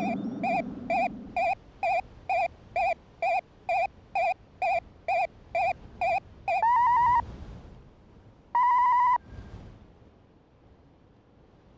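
Synthesized electronic sound effect: a steady run of about fourteen short beeps, two a second, followed by two longer warbling tones about a second and a half apart.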